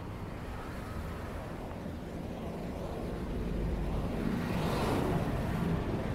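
Outdoor street ambience with a vehicle going past, growing louder and peaking about five seconds in.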